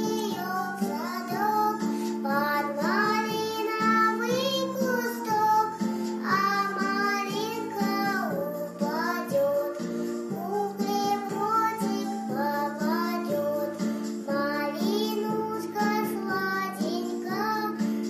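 A young girl singing a Russian folk lullaby, with instrumental accompaniment.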